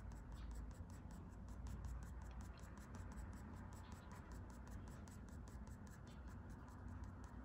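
Graphite pencil scratching on Strathmore drawing paper in rapid short flicking strokes, several a second, as fine fur is hatched in. A faint low hum lies underneath.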